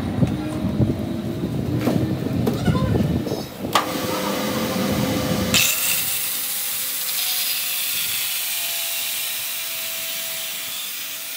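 Knocks and clatter of a disc being fitted to an angle grinder, then from about halfway a DeWalt angle grinder running against a steel truck axle flange turning in a lathe: a steady tone under a hiss of grinding.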